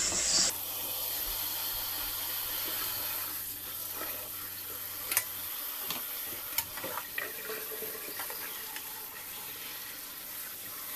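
A kitchen faucet runs a steady stream of cold water onto cooked pasta in a stainless-steel colander set in a steel sink, rinsing it so the strands don't stick together. A metal ladle gives a few light clinks against the colander about halfway through as the pasta is stirred.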